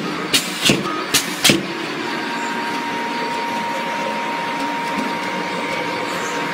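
Skewer logo-branding machine running: four sharp clacks about two a second in the first second and a half, then a steady mechanical hum with a faint thin whine.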